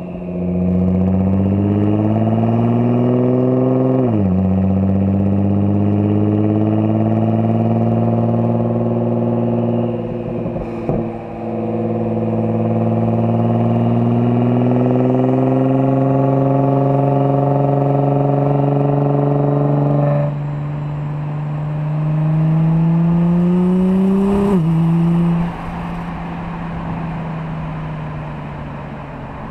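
2009 Nissan GT-R's twin-turbo V6 through an AAM exhaust accelerating hard through the gears: the revs climb and drop sharply at upshifts about 4 and 11 seconds in. The engine lets off about 20 seconds in, climbs once more, then falls back and runs quieter near the end.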